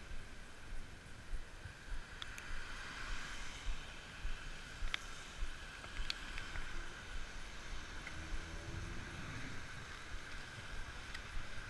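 Wind buffeting the microphone in an uneven, gusty rumble over a steady hiss, with a few faint clicks.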